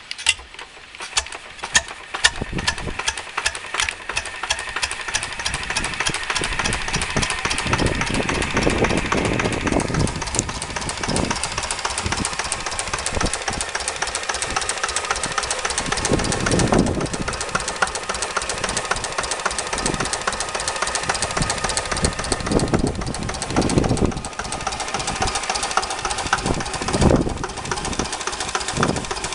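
Slavia D8 8 hp stationary engine catching: a few uneven firing strokes in the first couple of seconds, then settling into steady running with a rapid, even beat.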